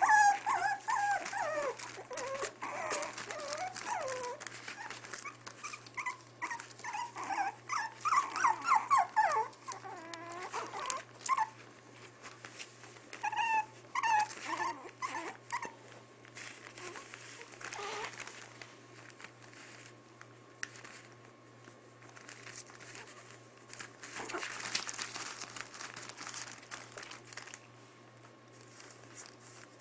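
Six-week-old Maltipoo puppies whining and yipping in many short high-pitched calls, thinning out after about twelve seconds, followed by newspaper bedding rustling and crinkling as they move around.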